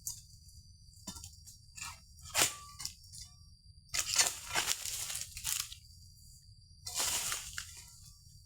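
Oil palm fronds being cut with a pole-mounted egrek sickle: three bursts of tearing and crunching as the fronds are cut and pulled away, the longest lasting about a second and a half in the middle.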